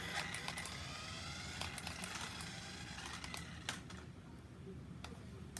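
Remote control toy car's small electric motor whining as it drives, the whine rising slightly in pitch and fading out about three and a half seconds in, with scattered sharp clicks.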